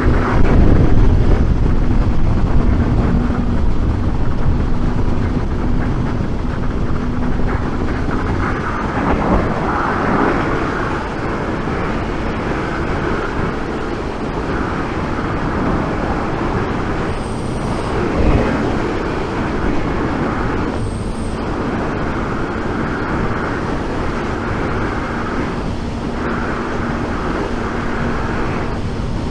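Wind rushing loudly inside a motorcycle helmet at riding speed, picked up by a microphone inside the helmet, over the steady drone of a Suzuki GSX 750's inline-four engine. The engine's steady note fades out about eight seconds in and comes back a little past halfway.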